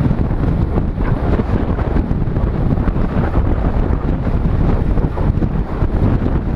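Wind buffeting the microphone of a helmet-mounted GoPro in an open skeleton housing, riding at race speed in a bunch of road bicycles. A loud, steady, fluttering rush, heaviest in the low end.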